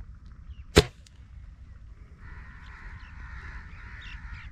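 A single air rifle shot, one sharp crack about a second in. From about two seconds in, birds call steadily.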